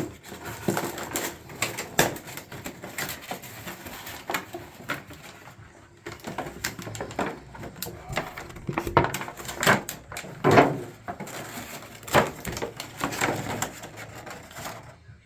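Hands handling and fitting shower valve trim parts: an irregular series of clicks, knocks and short scrapes.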